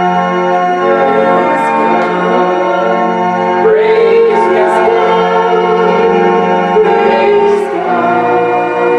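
Organ playing worship music in long, held chords.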